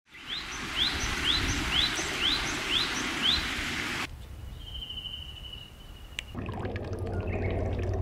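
Running water with a bird repeating a short rising chirp about twice a second, seven times. About four seconds in it cuts abruptly to a quieter background with a steady high whistle lasting about two seconds and a single click, then just after six seconds to a low steady hum.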